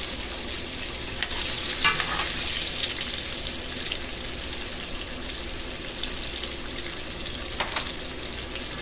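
Breaded salmon pieces deep-frying in a pot of hot oil: a steady sizzle and crackle, a little louder about a second in, with a few light clicks.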